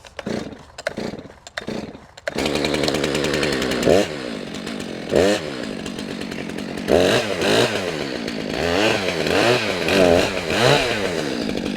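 Two-stroke chainsaw being pull-started, with a few short knocks and pulls before it catches about two seconds in, then running and revved up and down several times.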